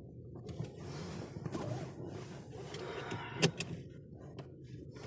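Road and tyre noise inside a car cabin while driving, with a sharp click about three and a half seconds in.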